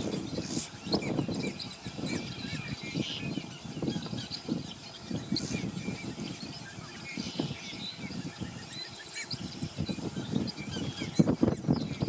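Birds calling: scattered short high chirps over a dense, irregular run of lower, rougher honking calls.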